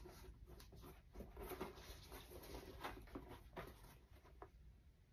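Near silence with faint, scattered soft rustles and light taps, as of a pair of sneakers being handled and turned over in the hands.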